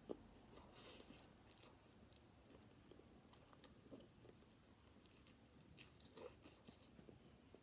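Faint close-up chewing of a mouthful of chicken chow mein noodles, with a string of soft, wet mouth clicks.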